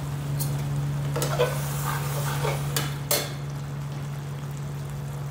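A spatula stirring and scraping thick goat-intestine masala as it fries in a pan, with several sharp clacks against the pan between about half a second and three seconds in, over a steady low hum. The masala is being cooked down on high heat until it dries and the oil separates.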